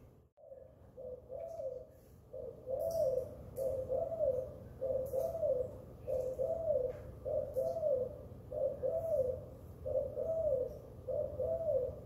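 Spotted doves cooing: low coos repeated in an even rhythm, about two a second, after a brief gap at the start.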